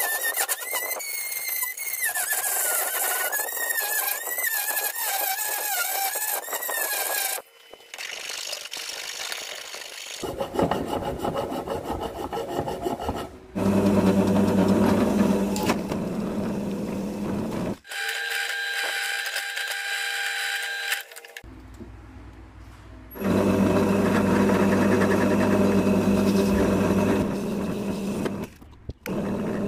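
Several short stretches of tool work cut together. A high wavering squeal runs for the first seven seconds, then comes the scraping of a tool cutting material, then stretches of a small motor running steadily with a low hum.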